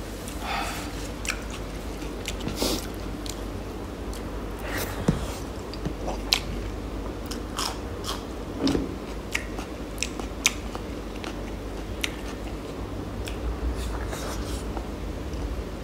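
A person eating close to the microphone: chewing and biting into food, with scattered sharp mouth clicks and smacks.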